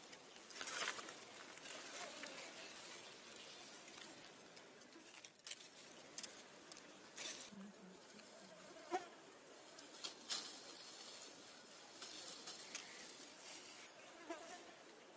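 Faint buzzing of flying insects outdoors, with scattered brief soft rustles and clicks.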